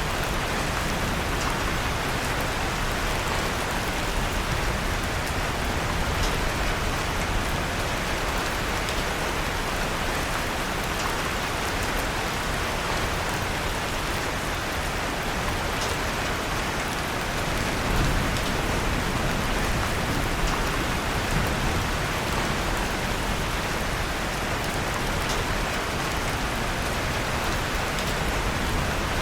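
Steady rain falling, an even hiss, mixed with a fireplace fire, with a few faint crackling clicks scattered through it.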